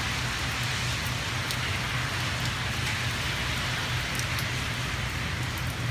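Steady hiss of rain, with scattered faint drop ticks, over a low steady hum.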